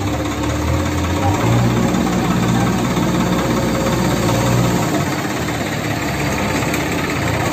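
Diesel engines running steadily: a Swaraj 744XT tractor's three-cylinder diesel and a JCB 3DX backhoe loader working alongside it. The low engine note strengthens about a second in and drops back about five seconds in.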